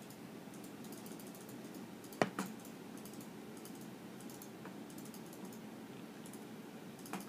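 Hamster chewing food inside a glass: rapid, faint crunching clicks in short clusters. A sharp knock about two seconds in is followed quickly by a smaller one, and another knock comes near the end.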